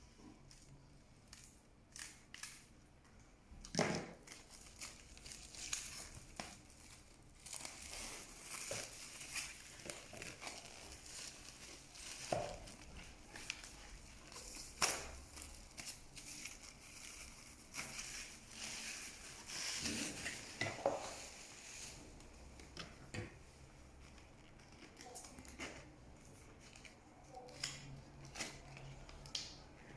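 Vinyl record packaging being handled and opened: plastic wrap and paper crinkling and tearing, with scattered sharp clicks and knocks, busiest through the middle.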